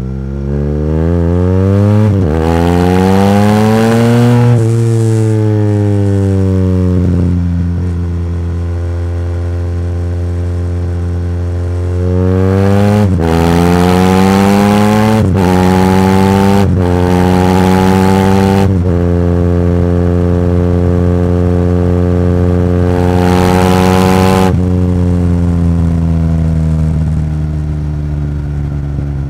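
BMW R1200GS boxer twin with an Akrapovič full exhaust system accelerating through the gears: it pulls up with one upshift, eases off and runs at steady throttle, then pulls hard again through four quick upshifts before cruising. A short surge near the end is followed by rolling off the throttle.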